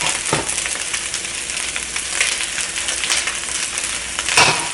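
Fried rice sizzling in a hot pan at high heat while it is stir-fried, with a spatula scraping and knocking against the pan every second or so; the loudest scrape comes near the end.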